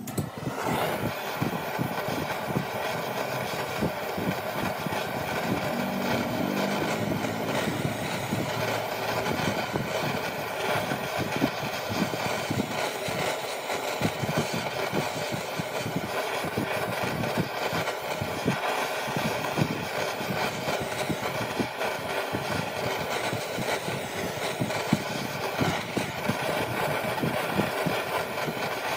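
Wood lathe running steadily with a motor whine, over a dense rough rattle.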